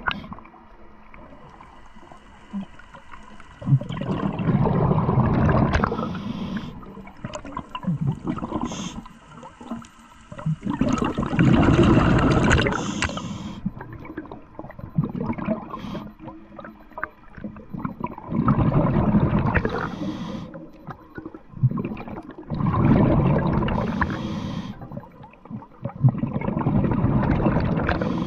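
Scuba diver breathing through a regulator underwater: about five loud, gurgling bursts of exhaled bubbles, each two to three seconds long, with quieter breaks between breaths.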